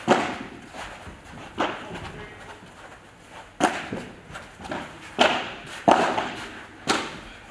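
Padel ball being struck by rackets during a rally: five sharp hits at irregular intervals, the last three coming quickly, each echoing briefly in a large hall.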